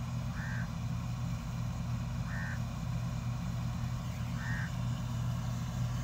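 Combine harvester's engine running steadily, a low even hum from a distance. A short, high call sounds about every two seconds over it.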